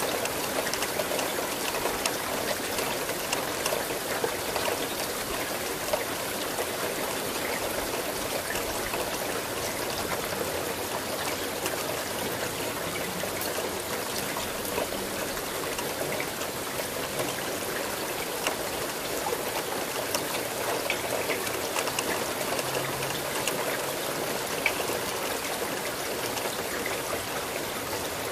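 Steady rain falling, a dense even hiss with scattered drops ticking and some water trickling or running off.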